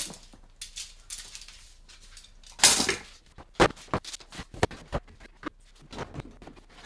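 Camping gear and cardboard boxes being moved and stacked by hand: rustling of bags and cardboard with light clinks and knocks. A loud rustle comes about two and a half seconds in, then a run of quick clicks and taps.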